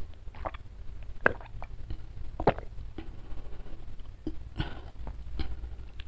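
A person gulping water from a glass mug, with three sharp swallows about a second apart, then a short breathy sound about four and a half seconds in.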